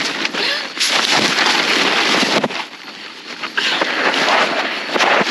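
Nylon tent fabric, mesh door and plastic tarp floor rustling and crinkling right against the microphone as a hand handles the mesh door and its zipper tape; a loud, uneven rustle with a brief lull partway through.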